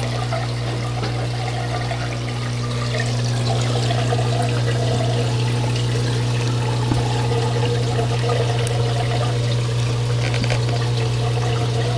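Water pouring and trickling steadily through an aquarium overflow siphon into the filter, over a steady low hum from the running water pump.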